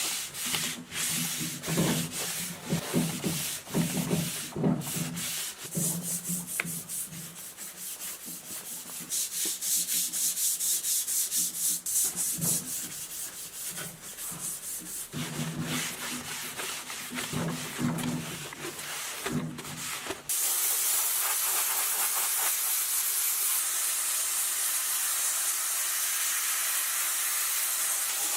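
Quick, repeated rubbing strokes of abrasive work on metal, like sanding or scrubbing off rust. About two-thirds of the way through, the strokes stop abruptly and a steady hiss takes over.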